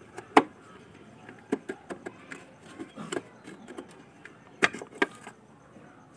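Scattered plastic clicks and knocks as the bulb holder is twisted out of a Tata Indica V2 tail-light housing and the bulb is pulled to check whether it has blown. The sharpest clicks come about half a second in and twice near five seconds.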